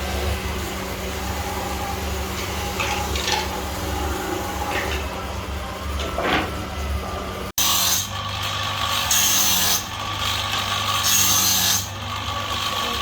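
Wood being worked by hand with an abrasive tool, in repeated rubbing, rasping strokes. They come clearest after a sudden cut, over a steady low hum.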